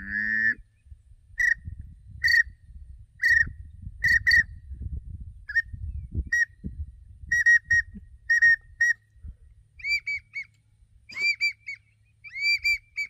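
A Land N Gear 6-in-1 duck whistle, the multi-species whistle for drake mallard, pintail, teal and wigeon calls, blown in a run of short whistled peeps, singly and in quick pairs and triplets. Near the end the notes sit a little higher and rise and fall.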